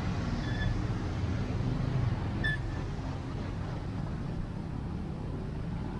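Steady low rumble of a vehicle or road traffic, with a few brief high-pitched chirps; the loudest chirp comes about two and a half seconds in.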